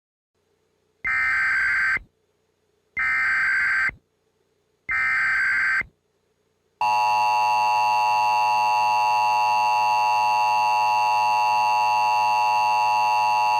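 Emergency Alert System header: three bursts of screeching digital data tones, each about a second long with a second's gap between them. Then, about seven seconds in, the loud steady two-tone EAS attention signal begins.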